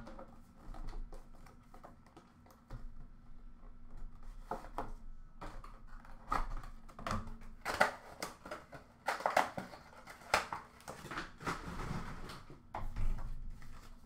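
Cardboard trading-card hobby box being opened and handled: scattered clicks, scrapes and rustles of cardboard, busiest in the middle.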